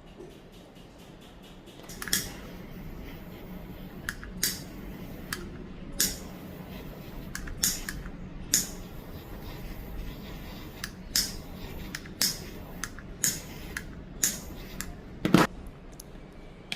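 Irregular sharp clicks and snips of small hand tools working on a hair dryer's power cable, roughly one every second, the loudest near the end, over a faint low hum.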